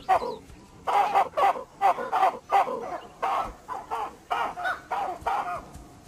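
Olive baboons giving rapid, harsh alarm calls, several a second and overlapping from more than one animal, the troop's outcry at a leopard.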